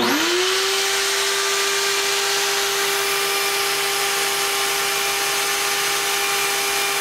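Flow bench motor switched on, spinning up in about half a second to a steady whine over a loud rush of air. The air is being drawn through a cylinder-head exhaust port set at 0.100-inch valve lift.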